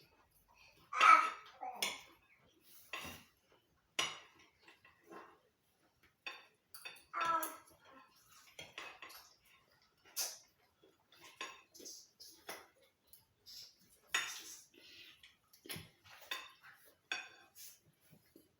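Cutlery and dishes clinking and knocking at a meal: irregular sharp clinks of utensils against plates while food is eaten, a few ringing briefly, the loudest about a second in.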